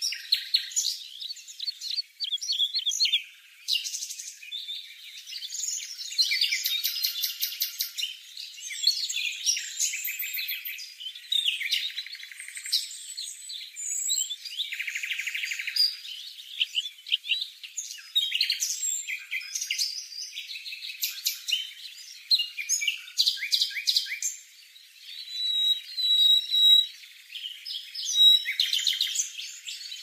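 Small songbirds chirping and twittering in short bursts, with quick rattling trills: nestlings begging at the nest as a parent comes to feed them. Every sound is thin and high-pitched.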